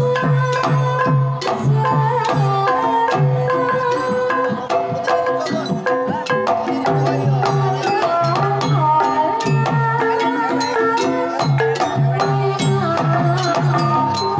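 Javanese gamelan playing a Banyumasan tayub piece: the kendang hand drum beats a steady rhythm against the sustained notes of metallophones and kettle gongs.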